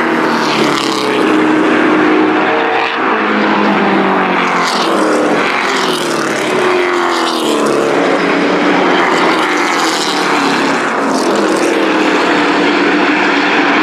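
Engines of several racing trucks running hard in a pack, their pitch rising and falling several times as they race by and through the turns.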